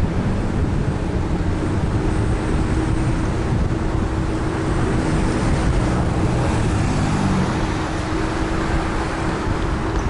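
Riding noise on an electric kick scooter: wind rushing over the microphone with street traffic alongside. A steady hum sits over it from about two seconds in.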